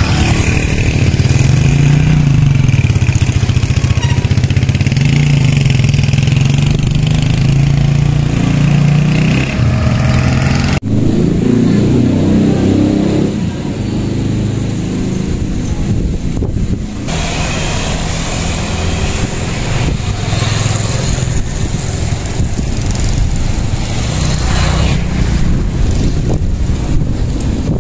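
A motor vehicle on the move: its engine runs steadily under road and wind noise. There is an abrupt cut about eleven seconds in.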